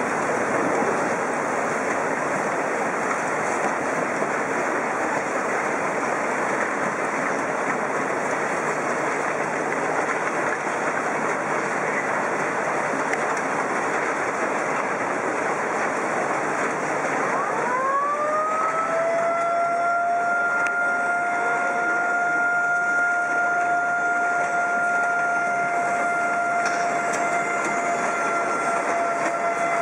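Loud, steady rushing of tsunami floodwater surging through streets. A little past the middle a siren winds up and then holds one steady tone to the end.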